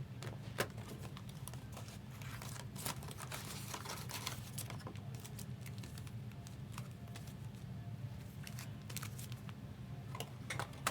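Trading cards and their foil pack wrappers being handled, crinkling with scattered light clicks, over a steady low hum.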